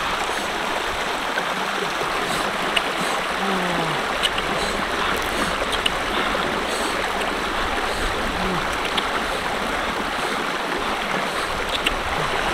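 Shallow mountain stream rushing over rocks in small rapids: a steady, unbroken wash of running water.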